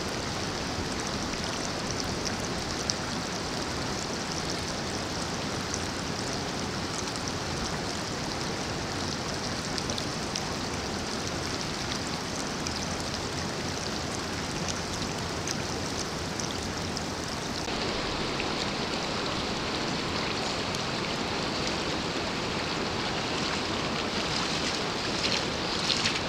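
Steady rush of flowing water in a spring-fed trout stream, with a slight change in tone about two-thirds of the way in.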